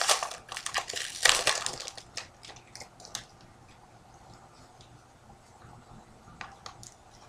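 Foil wrapper of a hockey card pack crinkling and tearing as it is opened, loud for the first couple of seconds. After that only quiet handling of the cards, with a few faint clicks.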